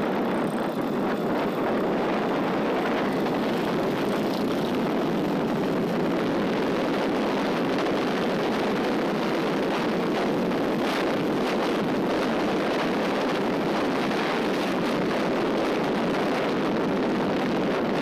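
Wind rushing steadily over the camera microphone on a Suzuki Gixxer SF 155 motorcycle riding at speed, with the bike's running noise mixed in underneath.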